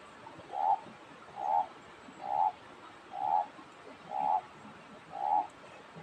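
A frog calling, six short croaks evenly spaced about a second apart.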